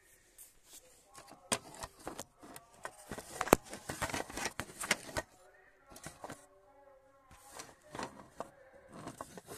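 Handling noise from a phone that is recording: a run of clicks and knocks, the loudest about three and a half seconds in, as it is moved about and set down on a wooden workbench.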